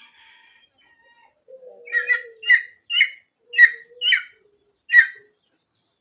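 Bird chirping: a run of about seven short, sharp calls, starting about two seconds in and spaced roughly half a second apart.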